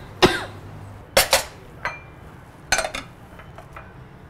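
A short cough right at the start, then ceramic plates and bowls clinking as they are set down and handled, in a few sharp clinks about a second apart with small clicks after.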